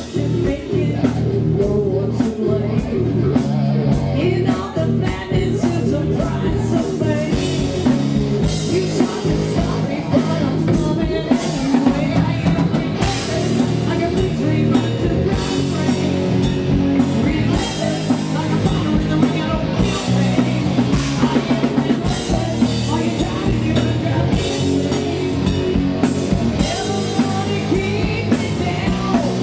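Live rock band playing: electric guitar, electric bass and a Tama drum kit, with a woman singing lead.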